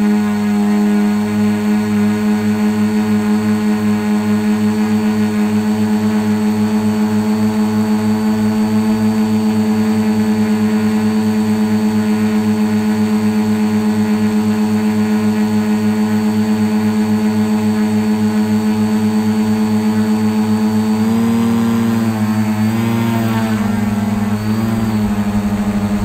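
Carbon quadcopter's electric motors and propellers droning steadily close to the onboard camera, with a regular pulsing in the sound. About twenty-one seconds in, the pitch starts wavering up and down as the throttle changes.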